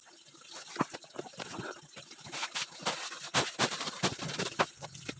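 Packaging being handled: irregular rustling and crackling with small knocks, busier in the second half.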